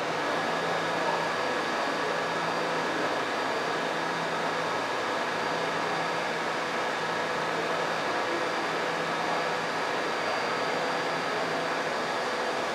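New York subway car standing still at a station: a steady hum of its air conditioning and on-board equipment, with several faint steady tones over it.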